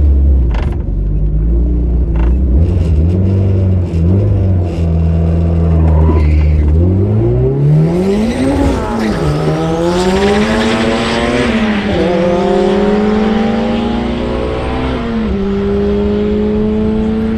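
Turbocharged Honda GSR four-cylinder held at raised revs on the line, heard from inside the cabin. About seven seconds in it launches and the revs climb steeply. They drop sharply three times as it shifts up through the gears, and wind and road noise rise with speed. The driver calls the launch botched, with a bit too much load on the clutch.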